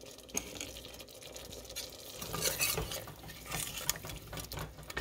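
Steel ladle stirring and scraping a thick tomato masala in a stainless steel pressure cooker, with irregular metal-on-metal scrapes and clinks that get busier about two seconds in.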